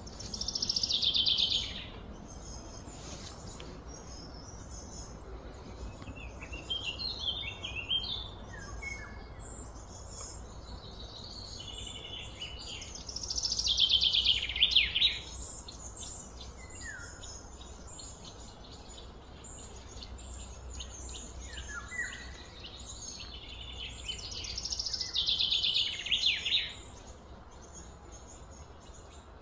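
Birdsong: a bird sings a loud, quick phrase three times, about twelve seconds apart, with softer chirps in between, over a low steady rumble.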